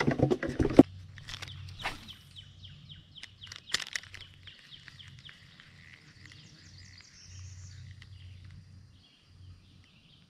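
A bird calling in a quick run of short, falling chirps, about four a second, lasting several seconds. At the start there is a brief, louder burst of knocks and rustling, with a few sharp clicks after it.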